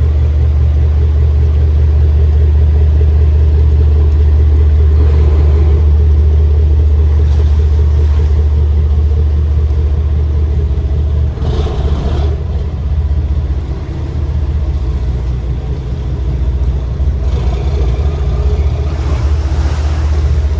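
Inboard diesel engines of a 50-foot Ferretti motor yacht running with a steady deep rumble, dropping slightly and turning rougher about halfway through.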